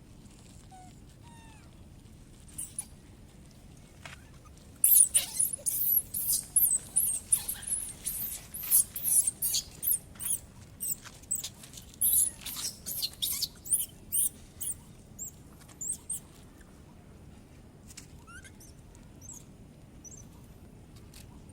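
A baby monkey's high-pitched squeaks: a rapid run of short calls with quick pitch glides, several a second, starting about five seconds in and lasting about ten seconds, then a few faint ones.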